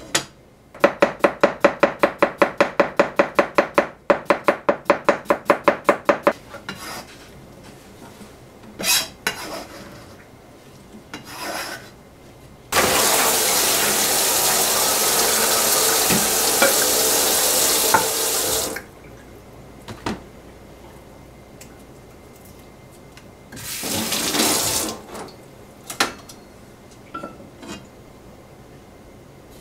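A knife chops on a plastic cutting board in a quick, even run of about four strokes a second for some five seconds. A kitchen tap then runs into a stainless steel sink for about six seconds while lettuce is rinsed in a mesh colander. The tap runs once more briefly near the end, with a few knocks.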